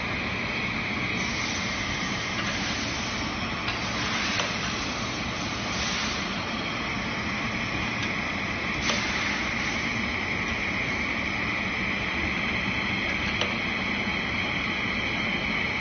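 Automatic cosmetic jar filling and capping machine running: a steady mechanical hum and hiss, with a few short hisses and sharp clicks every few seconds as it cycles.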